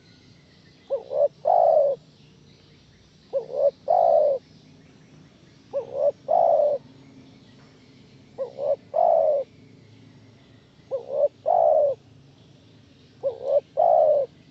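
Spotted dove cooing: six repeated phrases about every two and a half seconds, each two short coos followed by a longer, louder one.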